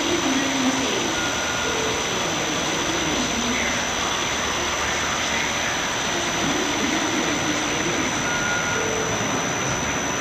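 Acasi GI3100 pressure gravity filler filling plastic jugs: a steady rushing noise of liquid running through the nozzles into the jugs, with a thin steady high whine throughout.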